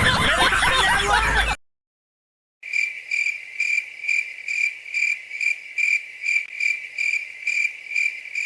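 Cricket-chirping sound effect, the stock 'awkward silence' meme sound: a steady high chirp repeating about twice a second, starting after a second of silence. Before it, a loud voice-like clip from the previous effect cuts off abruptly.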